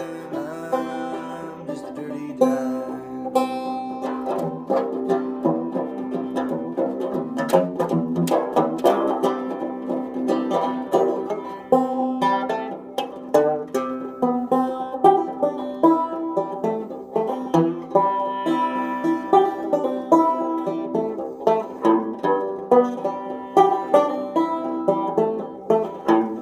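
Banjo strummed in a steady folk rhythm, with sustained harmonica notes held over it in an instrumental passage.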